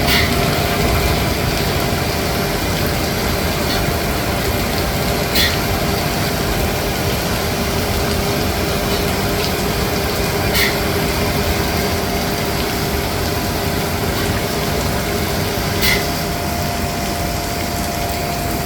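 Steady mechanical drone and hiss, with a short sharp click three times, about every five seconds. The clicks are slow strokes of the hand pump servicing a Boeing 767-400's center hydraulic reservoir.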